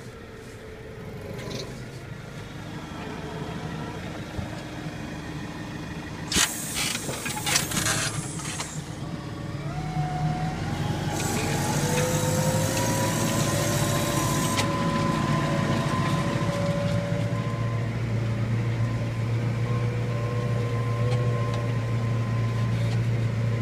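Claas Arion 440 tractor's diesel engine running under load, heard from inside the cab, while it pulls a four-furrow plough. It grows louder over the first ten seconds and its pitch rises about ten seconds in, then holds steady; a spell of clatter and knocks comes about six to eight seconds in.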